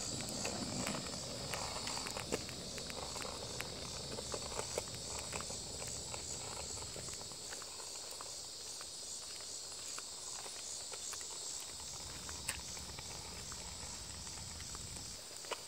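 Hard plastic skateboard wheels rolling over rough, cracked asphalt, a low rumble that fades over the first several seconds as the board moves away, with scattered light clicks. Insects buzz steadily in the background.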